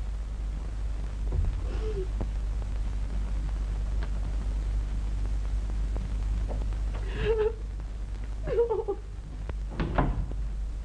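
Steady low hum and hiss of an early-1930s film soundtrack, with a few soft knocks and, in the second half, several brief faint vocal sounds.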